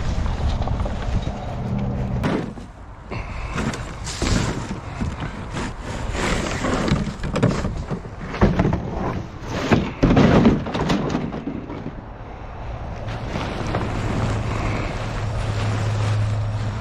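An engine idling steadily, broken by a run of irregular loud cracking and rustling knocks in the middle, then idling steadily again near the end.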